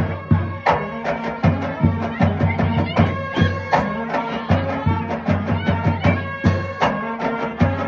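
Marching band playing a tune: sustained wind-instrument chords over a steady rhythm of drum hits, with a pair of Zildjian hand cymbals crashed close by.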